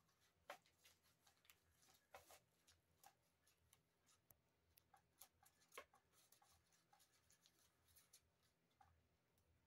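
Near silence, with faint, irregular scratches and light clicks.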